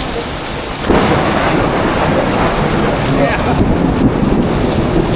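Heavy rain hissing, with a sudden clap of thunder about a second in that goes on as a loud rumble.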